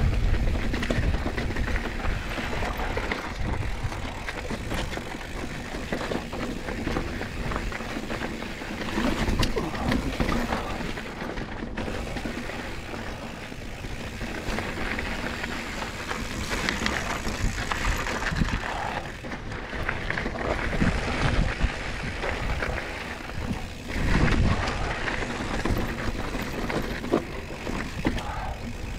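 Mountain bike being ridden over a rough trail: constant tyre noise and rattling of the frame and chain, broken by sharp knocks over bumps, with a louder jolt near the end.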